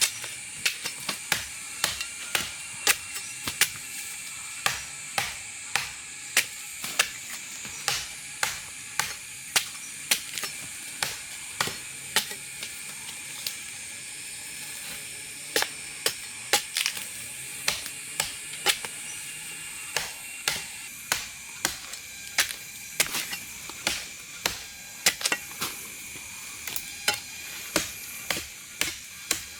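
Irregular sharp knocks, about one or two a second, over a steady high hiss.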